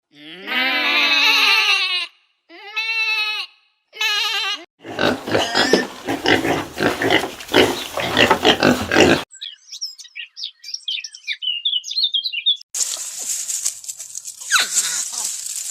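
A run of different animal sounds: three pitched cries, the first long and the next two shorter, then a few seconds of rough, rapid pulsing, then high twittering chirps and a hissing stretch with a falling whistle near the end.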